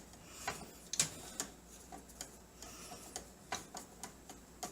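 Irregular sharp metallic clicks and ticks of a screwdriver working the motherboard screws loose from the standoffs in the PC case, several clicks a second at uneven spacing.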